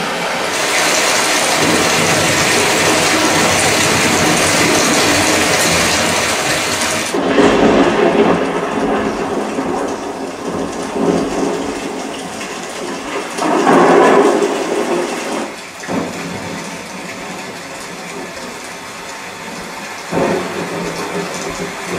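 Rain and thunder from a Dolby Atmos demo soundtrack, played through a soundbar and picked up by a camera microphone in the room. For the first seven seconds it plays through the Sennheiser Ambeo with a bright, hissing rain sound; then it switches to a Samsung HW-N850 and the rain sounds duller, with swells of rumble about eight and fourteen seconds in.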